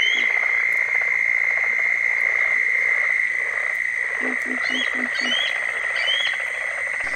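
Bald eagle calling a run of short, high, rising piping notes at the very start and again from about four seconds in, over a steady high-pitched chorus.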